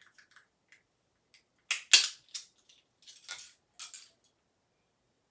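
Hard plastic Smashers dino egg halves and their contents being handled: a few sharp plastic clicks and knocks about two seconds in, then a short rustle and crackle, with quiet after about four seconds.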